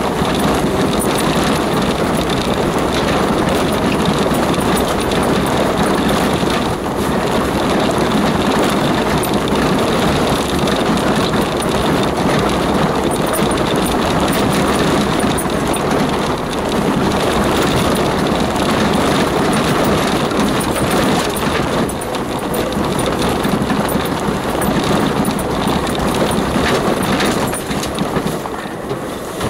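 Four-by-four driving slowly along a rough, stony unsurfaced track, heard from inside the cab: steady engine and tyre noise over the gravel, easing off slightly near the end.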